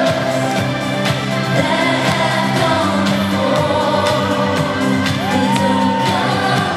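Live synth-pop song amplified through an arena sound system: a woman singing lead over a full band and backing track. About five seconds in, a sung note rises and is held for about a second.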